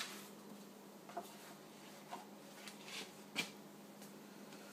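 Faint, scattered clicks and light knocks from a hand-crank pasta machine being handled as its crank is shifted to the cutting rollers, the sharpest click a little after three seconds in, over a steady low hum.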